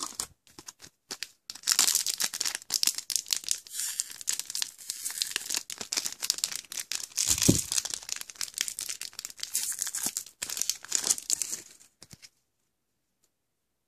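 Trading-card booster pack wrapper being crinkled and torn open: a dense, continuous crackle with a single dull bump partway through. It stops near the end.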